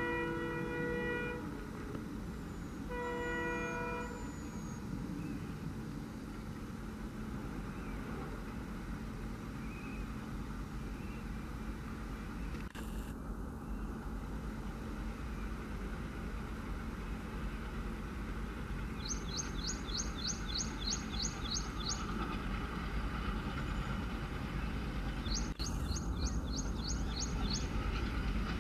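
Two horn blasts, each about a second long, from an approaching WDM3A ALCO diesel locomotive, then the low rumble of the locomotive and train growing steadily louder as it draws nearer. In the second half a bird gives two quick runs of high chirps, about three a second.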